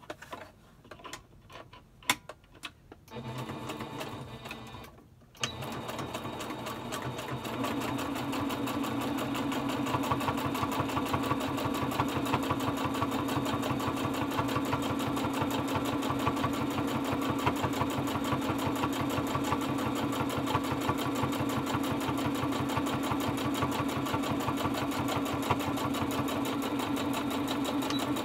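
Electric sewing machine stitching a seam through fabric. There are a few clicks and a brief run, then from about five seconds in the machine runs steadily with a rapid, even needle rhythm.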